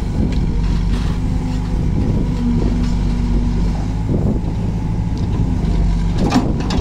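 JCB backhoe loader's diesel engine running steadily under hydraulic load as the arm swings and the bucket digs, its pitch lifting briefly a couple of seconds in. A short clatter comes about four seconds in and again near the end.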